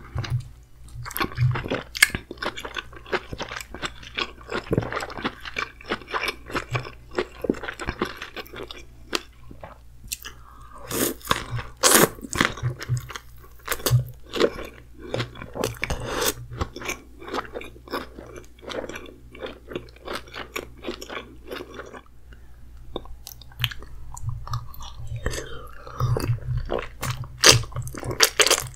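Close-miked chewing and mouth smacking as king crab meat dipped in thick creamy sauce is eaten, in dense, irregular clicks throughout. A steady low hum runs underneath.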